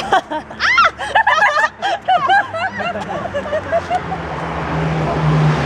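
Excited voices with laughter, high and sliding in pitch, for the first three seconds. About four seconds in, a car engine's steady low hum comes in and grows louder.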